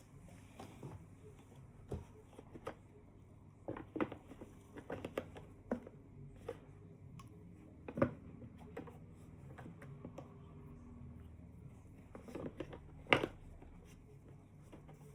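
Unboxing packaging and a small product being handled: irregular clicks, taps and light rustles, with two sharper knocks, about eight seconds in and near the end.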